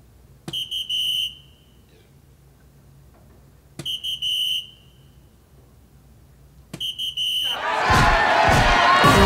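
Three soft-tip darts striking a DARTSLIVE electronic dartboard, about three seconds apart: each hit is a sharp click followed by the board's electronic hit sound, a short run of beeps ending in a held tone under a second long, which marks a scoring triple. After the third hit a crowd cheers loudly.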